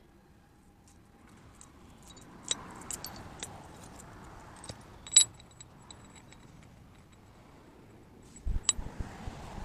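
Metal parts and tools clinking and ringing against each other as a gearbox is worked on: scattered sharp clinks, the loudest about five seconds in, and a cluster of knocks and dull thuds near the end.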